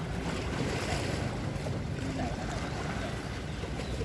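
Seaside ambience: a steady wash of surf and wind buffeting the microphone, with faint distant voices.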